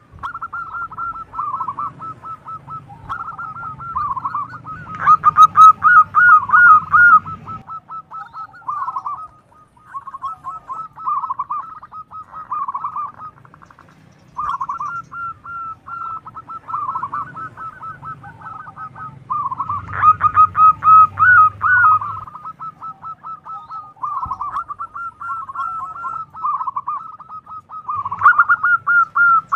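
Zebra dove (perkutut) cooing: phrase after phrase of rapid staccato coo notes, with short pauses between phrases and louder stretches about 5 and 20 seconds in.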